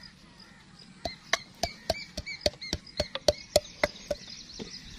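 Wooden pestle pounding fresh green chillies, coriander and mint in a wooden mortar: a run of sharp knocks, about three or four a second, starting about a second in and stopping at about four seconds.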